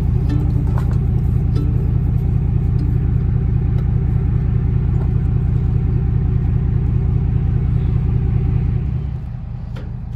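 Truck engine idling close by: a loud, steady low rumble with a fine, even pulse, dropping in level about nine seconds in.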